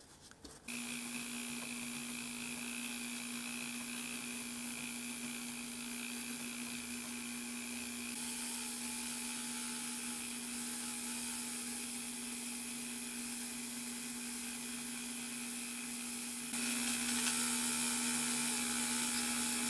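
Handheld rotary tool spinning a felt polishing bob against a clear plastic window piece, buffing it with polish: a steady motor whine that starts about a second in and gets louder near the end.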